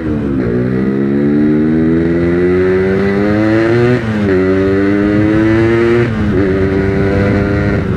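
Yamaha RX-King's 135 cc two-stroke single-cylinder engine pulling the motorcycle up through the gears: its pitch climbs steadily, falls back sharply about four seconds in and again about six seconds in as it shifts up, then holds steady.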